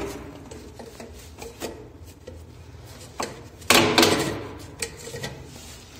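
Handling noise in a sink cabinet: scattered clicks, knocks and rubbing as a corrugated plastic drain hose is moved into place, with the loudest knock about four seconds in.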